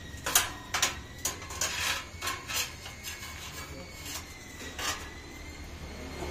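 Thin flame-cut steel slivers being pulled and broken off the edges of a soil auger's screw flighting, clinking and scraping against the steel about eight times in the first five seconds. A steady low hum runs underneath.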